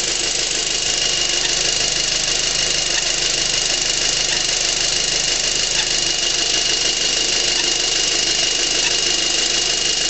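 2006 VW GTI MkV's 2.0T FSI turbo four-cylinder engine running steadily, with a steady high whine. An intermittent chirp from the passenger side of the engine, like a turkey call, recurs every couple of seconds.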